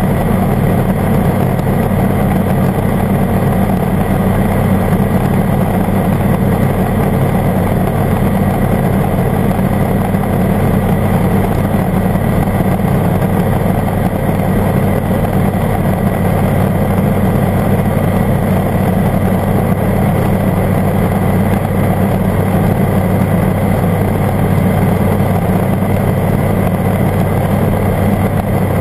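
Airbike ultralight aircraft's engine and propeller running steadily at cruise power in flight.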